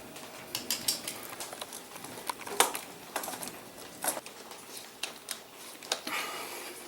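Scattered light clicks and taps of small hardware being handled and tightened: the screws and brackets holding an e-bike control unit to the seat post. The sharpest click comes about two and a half seconds in, with a short rustle near the end.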